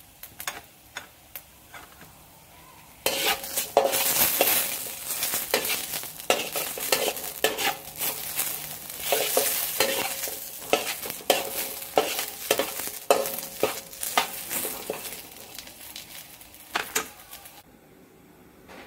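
Metal spatula scraping and stirring charred red chillies and garlic cloves around a dry steel wok: a few faint ticks at first, then from about three seconds in a long, busy run of scrapes and knocks that stops about a second before the end.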